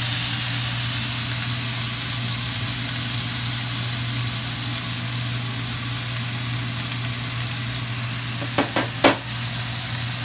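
Beef steaks sizzling as they fry in a nonstick pan, a steady hiss. Near the end come three quick clicks, the last one the loudest.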